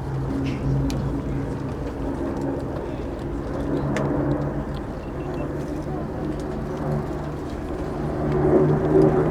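Steady drone of the Battle of Britain Memorial Flight formation's piston aero engines: an Avro Lancaster, whose four Rolls-Royce Merlin V12s dominate, with a Spitfire and a Hurricane in formation. The engine note swells louder near the end.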